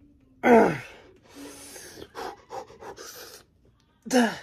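A man grunting with effort on each rep of a heavy one-arm dumbbell row: two short grunts that fall in pitch, about half a second in and near the end, with hard panting breaths between them.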